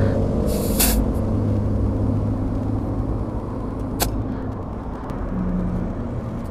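A motor vehicle engine idling steadily, with a short hiss about half a second in and a sharp click about four seconds in.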